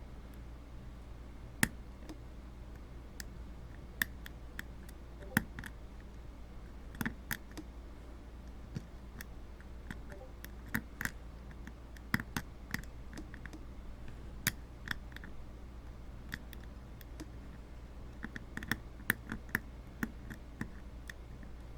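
Lock pick and tension wrench working the pin stack of a 5-pin brass padlock: irregular light metallic clicks and ticks, some in quick clusters, as pins are lifted and set.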